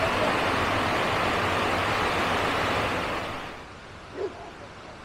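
Steady rush of flowing water from a spring-fed stream. It drops away sharply about three and a half seconds in, leaving a quieter background with one brief sound shortly after.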